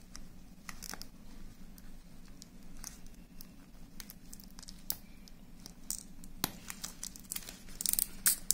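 Handling noise of a leather watch strap being worked loose through its buckle on the box's cushion: scattered small clicks and rustles, with a sharp click about six and a half seconds in and a flurry of rustling near the end.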